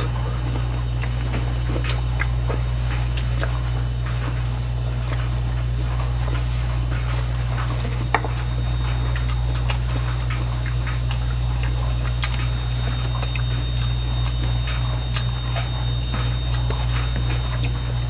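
A steady low machine hum, with scattered light clicks and taps and one sharper click about eight seconds in.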